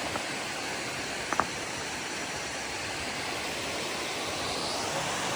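Steady rush of a waterfall, with two short sharp clicks about a second and a half in.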